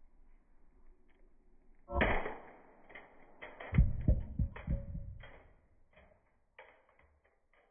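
A sudden hard impact about two seconds in, followed a couple of seconds later by a run of several low thuds that die away.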